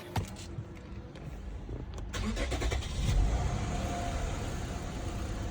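Car engine started by bypassing the push-start button: a click, then the engine turns over and catches about three seconds in, settling into a steady run.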